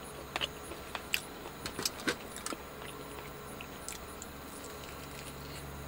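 Scattered light clicks and clinks of small objects being handled in the first two and a half seconds, then only a steady low hum.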